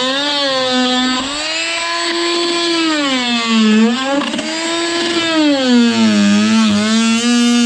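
Background music: a single sustained lead line playing a slow melody of long held notes joined by smooth pitch bends, with a slight waver on some notes.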